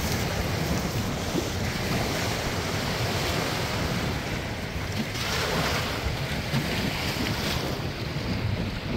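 Wind buffeting the microphone over small waves splashing against the lakeshore and dock, with a louder wash about five seconds in.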